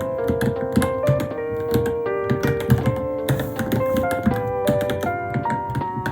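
Steady, irregular key clicks from typing on a Varmilo Minilo mechanical keyboard, mixed with background music carrying a piano-like melody.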